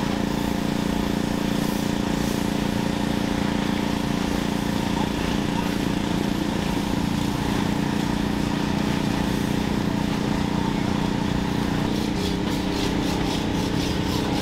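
An engine running steadily with an even, unchanging hum. A faint rapid rasping rhythm joins near the end.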